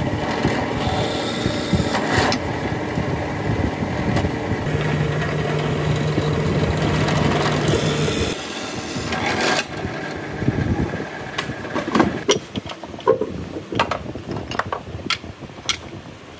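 Benchtop drill press running steadily as its bit bores through a hardwood lamp arm. After about eight seconds the running stops, and a series of sharp knocks and clatters follows as the drilled wooden pieces are handled.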